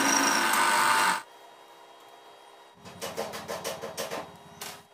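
Drill press running as its bit cuts through a steel square-tube frame, stopping abruptly about a second in. After a pause, a quieter quick run of clicks lasts about two seconds.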